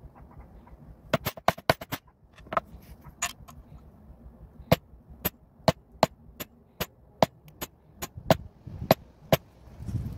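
Mallet striking a metal letter stamp into a leather belt on a stone slab: a quick flurry of sharp taps about a second in, then a steady series of single strikes about two a second.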